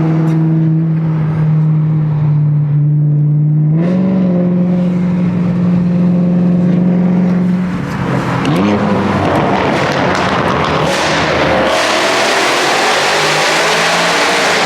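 BMW M car engine and exhaust cruising at steady revs, stepping up in pitch about four seconds in, then accelerating from about eight seconds as the exhaust grows much louder.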